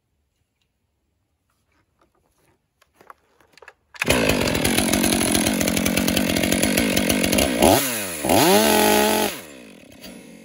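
STIHL MS500i two-stroke chainsaw with full chisel chain, at full throttle from about four seconds in, cutting into protective chaps. Its pitch drops sharply twice as the chaps' coarse fibres are dragged in and choke the drive sprocket, and the engine sound falls away near the end with the chain jammed.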